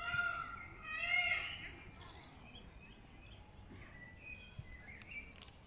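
Birds chirping among the trees. Two louder, pitched calls come in the first second and a half, then scattered short high chirps follow over faint outdoor background noise.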